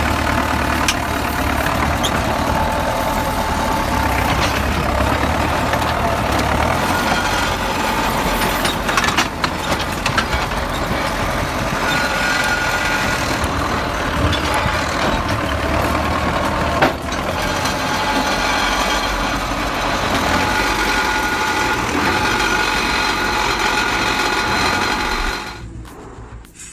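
Heavy diesel engine running steadily under load, with a few sharp knocks. It drops away abruptly about a second before the end.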